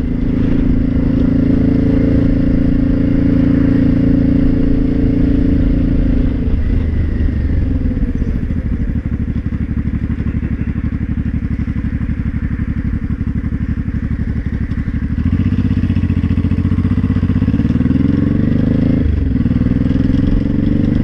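Honda Shadow VT500C V-twin engine running, its revs dropping about a third of the way in and climbing again past the middle, with a rattling clatter. The rattle is the one the owner traced to broken and loose bolts that lacked Loctite.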